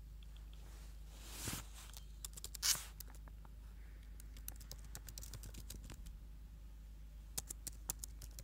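Faint scattered clicking of a computer keyboard and mouse, with two short rustling noises about one and a half and nearly three seconds in.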